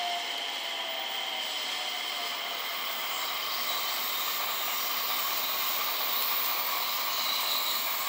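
JR West 227 series electric trains running through a station: a steady rushing hiss, with a motor whine that falls in pitch at the start as one train pulls away. Fainter higher whines come in near the end as the next train approaches.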